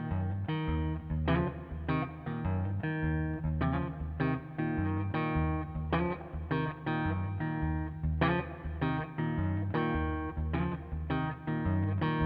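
Background music: a guitar-led instrumental with plucked notes and a bass line over a steady beat.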